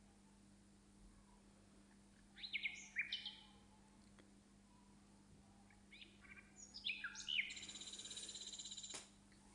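A small bird chirping in two bouts, about two seconds in and again from about six seconds, the second bout ending in a rapid trill that stops about nine seconds in. A faint steady hum lies underneath.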